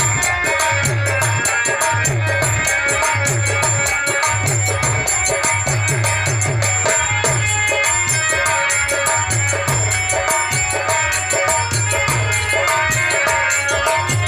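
Instrumental folk music: a harmonium holding sustained reed notes over a steady, repeating drum beat, with jingling, rattling percussion ticking along.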